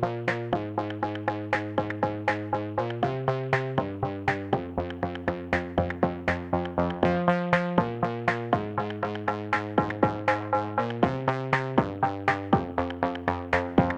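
Background electronic music: a steady, fast pulse of about four notes a second, with chords changing every second or two.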